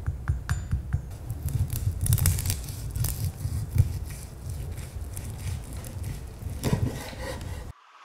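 Chef's knife cutting through the crispy crackling skin of roast pork belly on a wooden board: a dense run of crunchy cracks and snaps that shows the skin is crisp. It cuts off suddenly near the end.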